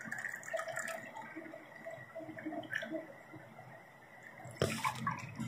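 Apple juice poured from a jug into a glass, trickling and gurgling unevenly. A short, sharp knock comes near the end.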